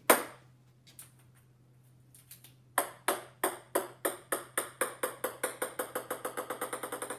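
Ping-pong ball bouncing on a hard wooden floor: from about three seconds in, a run of light pings that come faster and faster as the ball settles. There is a sharp click at the very start.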